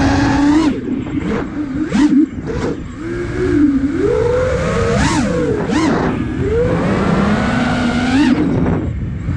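Five-inch FPV quadcopter (iFlight Nazgul Evoque F5) motors and propellers whining, the pitch sweeping up and down with the throttle through freestyle moves, recorded on board with wind rush. The sound eases briefly about three seconds in and again near the end.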